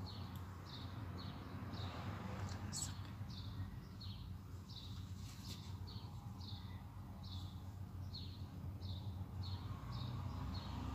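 A small bird chirping over and over: short, high, falling chirps, about one or two a second, over a steady low hum.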